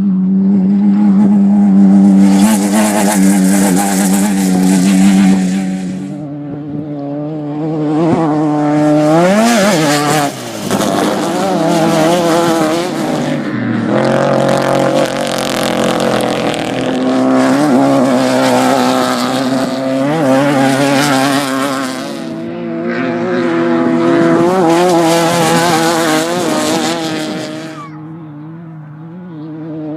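Off-road race vehicles passing one after another at speed, engines revving up and easing off as each goes by. A steady engine note holds underneath at the start, and it is quieter near the end.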